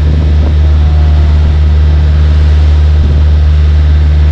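Small river ferry boat's engine running steadily under way, a loud constant low drone, with rushing wind and water noise over it.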